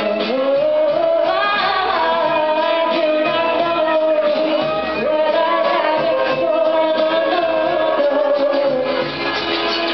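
Live band performance: a woman singing over electric guitar and violin, her voice sliding up into a note at the start and then holding long notes.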